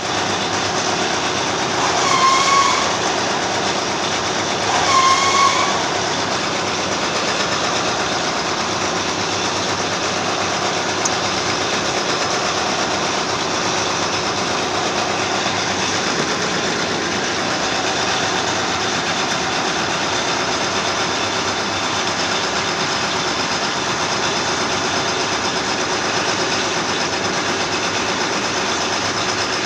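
Lathe running steadily while machining a bush, with two brief squeals about two and five seconds in.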